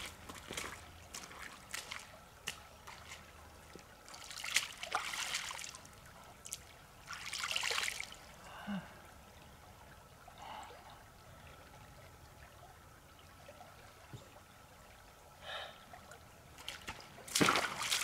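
A stream trickling, with a few louder noisy bursts about a second long.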